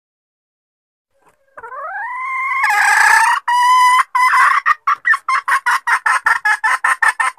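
Junglefowl hen calling: a rising note that swells into a loud harsh call, then a fast run of clucks at about four or five a second. It is the hen's mating call, used as a lure for wild junglefowl.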